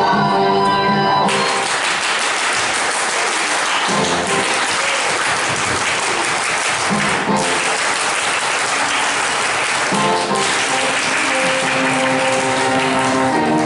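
Choir singing breaks off about a second in and gives way to a crowd of singers clapping their hands. About ten seconds in, singing and music come back in under the clapping, which stops at the very end.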